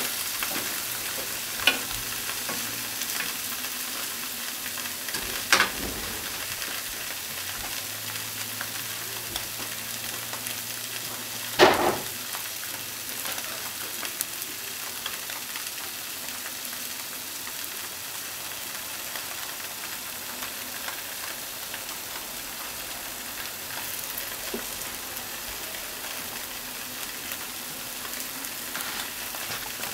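Potato-starch-coated tofu cubes sizzling steadily as they fry in a non-stick frying pan. A few sharp ticks come through, the loudest about twelve seconds in.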